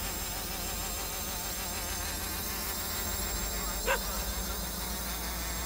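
Quadcopter's motors and propellers buzzing steadily in flight, the pitch wavering slightly. One brief short sound about four seconds in.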